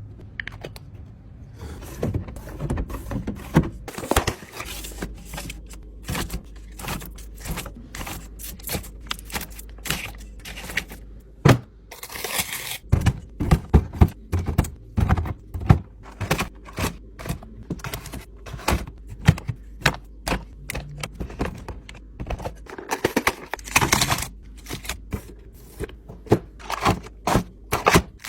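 Packaging being handled and pulled off a new refrigerator: irregular knocks, clicks and scrapes, with two longer rustling, tearing stretches, about a third and four-fifths of the way through.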